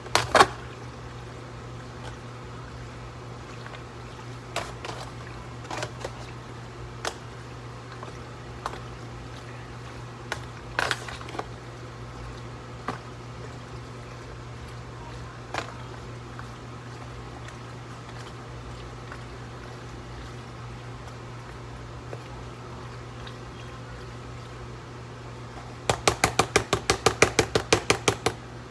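Kitchen cooking sounds over a steady low hum: scattered knocks and clinks of utensils and cookware, with the loudest near the start. Near the end comes a rapid, even run of about fifteen clicks, about six a second.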